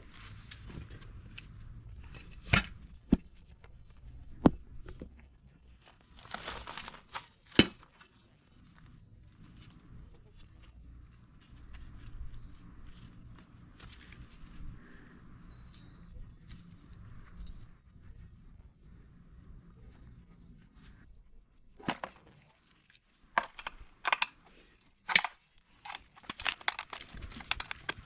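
Scattered sharp metallic clinks and knocks of hand tools and parts being handled during motorcycle swingarm work, with a cluster of them near the end. Underneath runs a faint steady high-pitched whine that pulses evenly.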